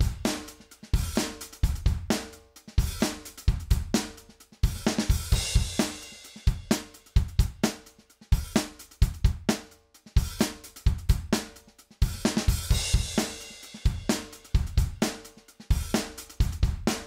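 Acoustic drum kit loop (kick, snare, hi-hat and cymbals) playing a steady beat through a 1176-style FET peak limiter plugin, the Arturia Comp FET-76. Its dry/compressed mix is swept from fully compressed to fully dry and then to a parallel-compression blend of about two-thirds compressed.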